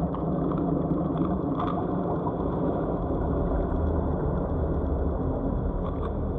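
Dark-ambient synth music: a dense, low rumbling drone that holds steady, with a few faint clicks above it.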